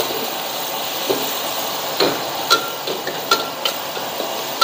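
Yellow noodles and vegetables sizzling steadily in a hot wok as they are stir-fried, with a metal ladle and spatula clinking sharply against the wok a handful of times.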